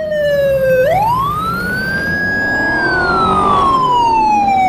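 Police car siren wailing: a quick rise to a held high note about a second in, then a long slow fall, over a low rumble.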